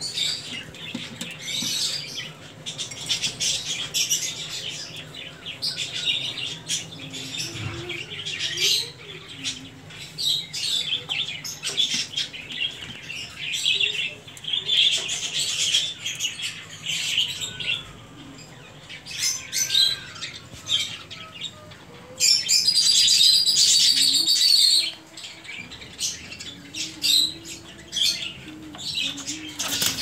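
Caged pet birds in a home aviary chirping and chattering constantly in many short, high calls. About 22 seconds in, a louder stretch of shrill calling lasts a few seconds.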